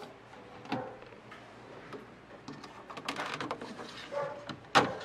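Scattered clicks and knocks of hands working at the window glass and bare steel inner door panel of a car door, with one sharp knock near the end.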